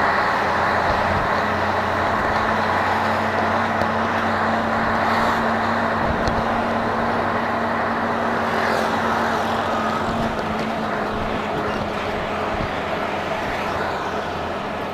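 Heavy truck's diesel engine running steadily while driving, heard from inside the cab with road and cab noise. The engine note eases off and gets a little quieter about ten seconds in.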